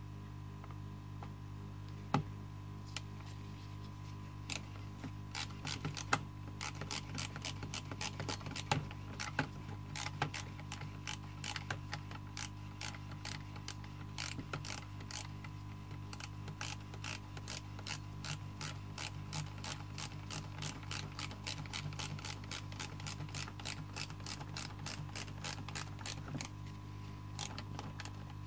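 Ratchet socket wrench clicking in runs of quick clicks as the carburettor mounting nuts are tightened, a little at a time on each side.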